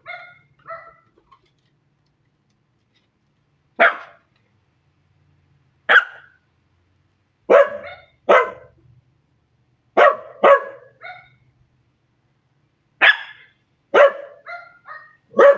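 Scottish terrier barking: about nine sharp barks, single or in quick pairs, a second or two apart. Fainter barks from other dogs come between some of them.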